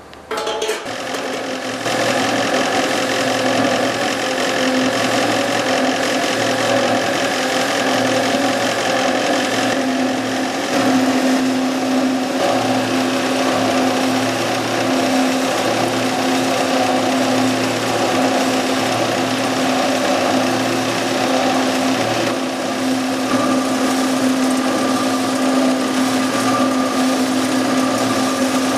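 Battering and breading machine for skewered food running: a steady mechanical running noise with a constant hum, coming in shortly after the start and growing louder about two seconds in.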